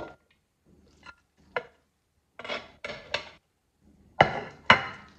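Kitchen utensils clinking and scraping against dishes as salad is served onto a plate: a few scattered clinks, then two louder knocks about four seconds in.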